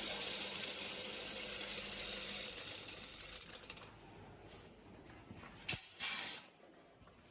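Small metal fasteners rattling steadily through a weigh-and-count packing machine for about four seconds. Then a sharp click and a short clatter come near the end.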